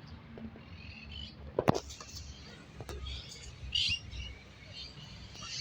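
Birds chirping, short high calls scattered through, with a couple of sharp clicks, the loudest about a second and a half in.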